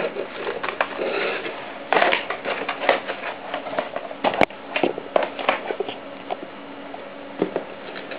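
Cardboard packaging being handled as the inner tray of a graphics card box is lifted out: irregular rustling, scraping and tapping of card, with a sharp click about four and a half seconds in.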